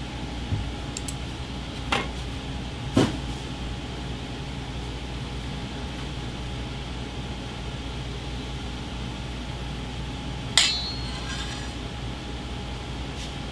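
A few light clinks of utensils on a ceramic dish and a steel counter: two small clicks about two and three seconds in, and a louder ringing clink near the end. A steady kitchen hum runs underneath.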